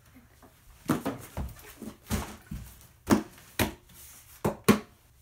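Cardboard shipping box being handled and set down: a run of sharp, unevenly spaced knocks and thumps.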